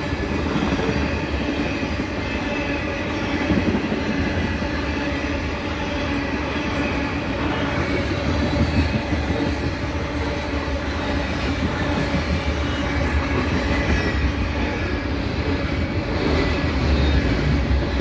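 Heavy loaded potash unit train of covered hopper cars passing at speed close by: a steady rumble and clatter of steel wheels on the rails.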